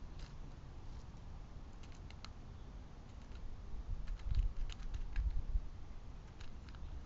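Scattered light clicks and taps of an animal, most likely a squirrel, at a backyard feeder, with a run of low thuds about four to five and a half seconds in.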